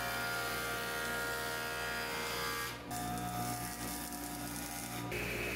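Grizzly jointer running, its cutterhead planing boards of rough hardwood flat and square. It makes a steady motor hum under a hiss from the cut, with a brief drop about three seconds in between a pass face-down and a pass on edge. The sound shifts near the end.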